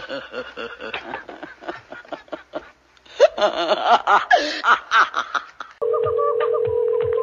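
Raspy, demonic cackling laughter from the possessed girl, in repeated bursts. About six seconds in it gives way to a steady telephone ringing tone heard over the phone line, which stops near the end.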